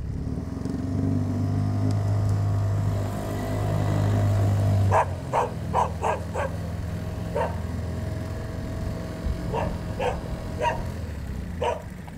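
A dog barking in short single barks, about eight of them from about five seconds in, over the steady hum of an engine running, which is loudest in the first five seconds and then drops back.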